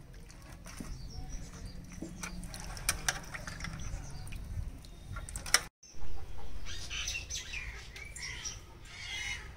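Outdoor ambience of birds chirping and chickens clucking, with scattered light clicks and taps. A brief dropout cuts the sound off about halfway through, and short rising and falling chirps follow in the second half.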